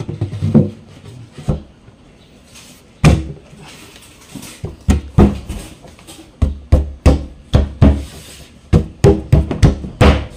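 Repeated knocks and hollow thuds on a plywood subwoofer box as its cover is pressed and tapped into place; the knocks are irregular and come faster in the second half.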